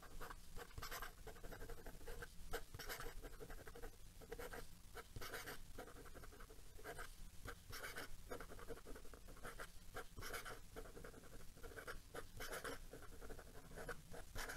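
Pilot Falcon fountain pen with a soft-fine 14k gold nib writing quickly on notebook paper: a faint run of short, irregular scratching strokes.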